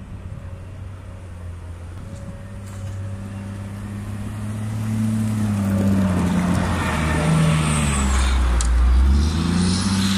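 Diesel engines of a Caterpillar 950H wheel loader and a 140GC motor grader clearing snow. The running grows louder over the first several seconds as the loader comes close, and its pitch rises and falls with a deep rumble near the end.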